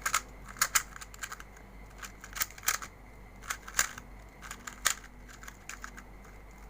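A plastic 2x2 puzzle cube being turned quickly to scramble it: an irregular run of sharp clicks and clacks as the layers snap round.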